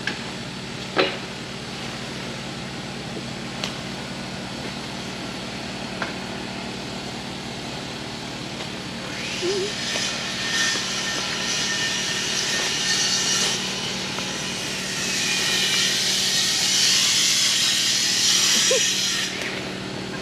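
A small engine running steadily with a low hum, a few sharp knocks in the first six seconds, and two long stretches of hissing noise in the second half.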